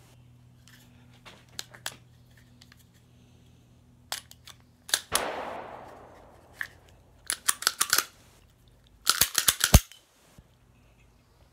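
Metallic clicks and clacks of a Sig P365 pistol being handled and its slide worked to clear a stuck spent casing after a failure to extract. The clicks come in groups, with a dense cluster near the end, and about halfway there is a brief noisy rush that fades over a second.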